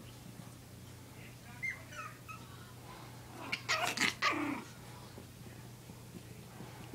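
Pomeranian puppies yipping and squeaking in play: a few faint high squeaks about two seconds in, then a second-long burst of sharp yips halfway through.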